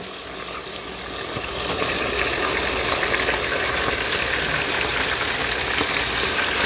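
Breaded lobster tail deep-frying in hot lard in a cast iron Dutch oven: a steady sizzle that builds over the first couple of seconds and then holds.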